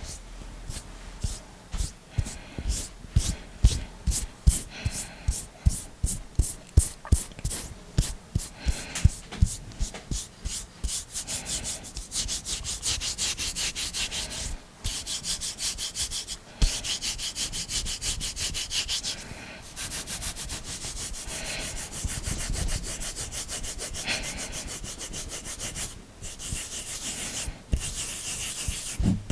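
Hands rubbing close to a sensitive microphone: quick separate strokes, two or three a second, for about the first ten seconds, then a steady scratchy rub broken by a few short pauses.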